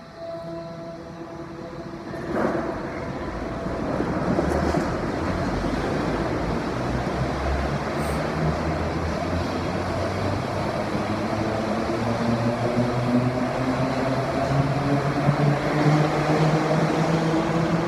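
Shanghai Transrapid maglev train pulling out of the platform and accelerating away: a rushing hum that grows steadily louder, its steady tones slowly rising in pitch as it gathers speed. A single sharp knock sounds about two seconds in.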